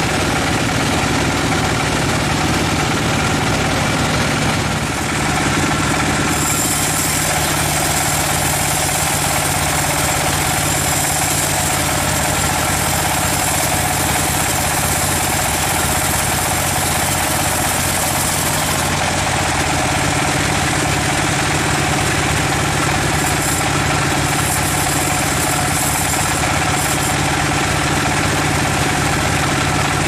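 Vertical band sawmill running steadily with a constant machine drone, its blade sawing through a log. A brighter high hiss of cutting comes in about six seconds in and eases off about two-thirds of the way through.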